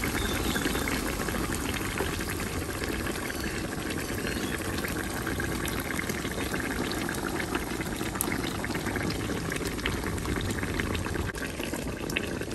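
Hot palm oil and onions sizzling and crackling steadily in an enamelled cast-iron pot as thick blended tomato and groundnut paste is poured in from a blender jug.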